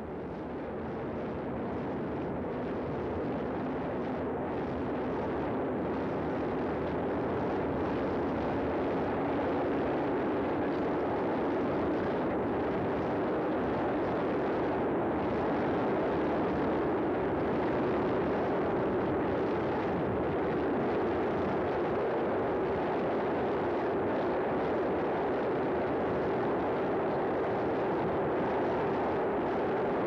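A steady, even rushing noise with no distinct events, swelling gradually over the first ten seconds or so and then holding.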